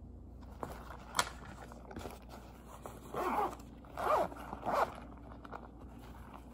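Zipper on a fabric pencil case being pulled open in three short rasping strokes, after a single sharp click about a second in.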